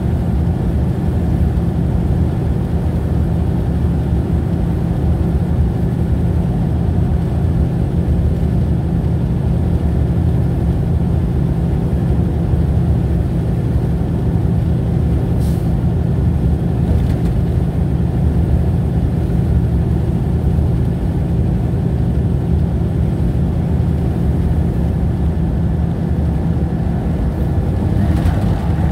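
Steady low road and engine drone heard inside a car's cabin while cruising at highway speed.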